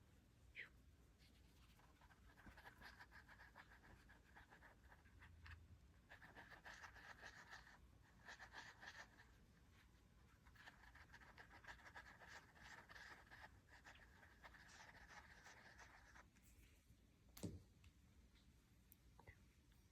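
Faint rubbing and scratching in several stretches, as hands massage a bichon frise's paw, with one sharp click near the end.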